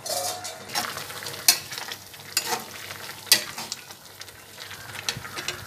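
A spatula stirring thick, simmering potato and soya-chunk gravy in a metal kadai, knocking sharply against the pan about four times, over a steady bubbling sizzle.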